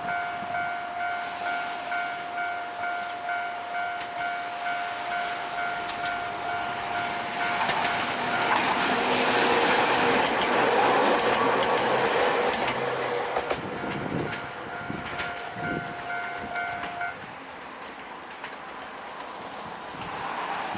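Japanese level-crossing warning bell ringing its steady, rapidly repeating "kan-kan" alarm while an Ohmi Railway electric train passes over the crossing. The train's noise swells to its loudest about eight to fourteen seconds in and ends with a few wheel clacks over rail joints. The bell stops about seventeen seconds in.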